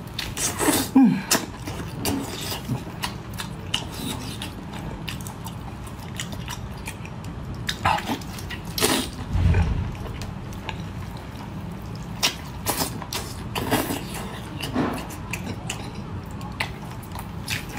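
Wet mouth sounds of biting and chewing a chili-sauced octopus: sticky smacks, slurps and many sharp wet clicks, over a steady low hum, with a dull thud about nine and a half seconds in.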